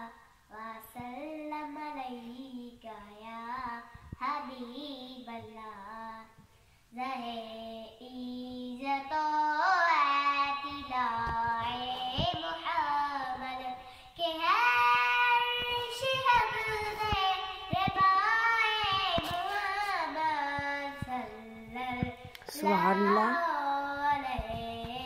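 A young girl singing a naat, an Urdu devotional song in praise of the Prophet, unaccompanied, in drawn-out phrases that grow louder partway through.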